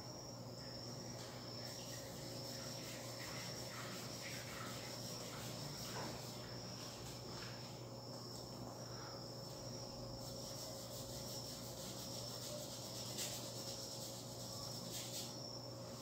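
Faint strokes of an oil-paint brush rubbing on canvas, with a steady, high-pitched pulsing trill behind them.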